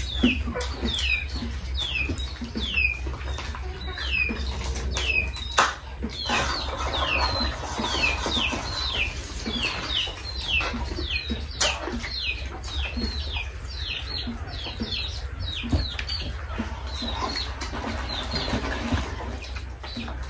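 A bird chirping over and over, a short high note falling in pitch about twice a second, over a low steady hum, with a few sharp clicks and rustles from people eating at the table.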